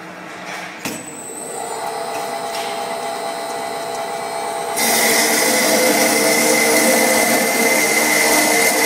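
Cold saw's circular blade cutting a clamped metal tube under coolant. A clunk about a second in, then the saw runs with a steady hum; almost five seconds in the blade bites into the tube and a much louder steady cutting noise with a strong high tone takes over.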